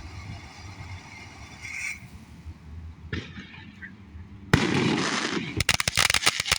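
Consumer ground firework going off: a sudden loud hiss about four and a half seconds in, then about a second later dense, rapid crackling.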